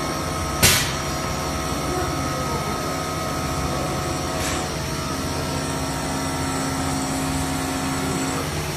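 CNC machining centre running: a steady machine hum with several held whining tones. A short, sharp burst of noise a little over half a second in is the loudest moment, with a fainter one past the middle.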